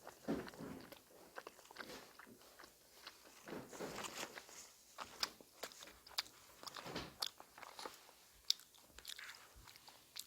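A person chewing a mouthful of bossam (boiled pork wrap) close to the microphone, with irregular crisp crunches and wet mouth clicks.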